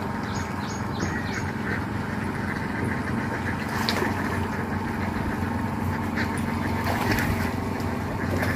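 Ducks quacking repeatedly over a steady low motor hum.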